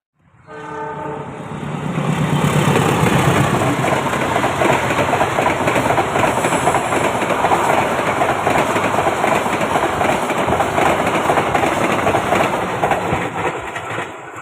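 A train passing close by: a brief horn note in the first second, then the steady noise of the train rolling past on the rails for about twelve seconds, fading near the end.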